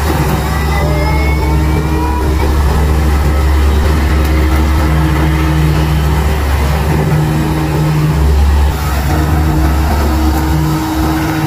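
Corded electric lawnmower running steadily as it is pushed across grass, a loud motor hum that dips briefly about three quarters of the way through.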